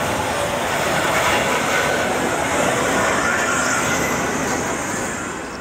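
Class 52 steam locomotive working past with a train of covered goods wagons: a loud, steady rush of locomotive and wheel-on-rail noise, easing slightly near the end.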